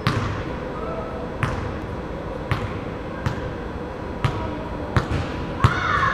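Basketball being dribbled on a hardwood gym floor: about nine single bounces, roughly one a second and unevenly spaced, each echoing in the large hall. A brief squeak near the end.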